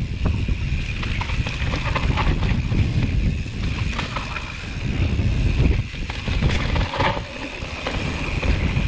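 Mountain bike rolling down a dirt singletrack, with wind rumbling on the camera microphone and frequent clicks and rattles from the bike over the bumpy trail.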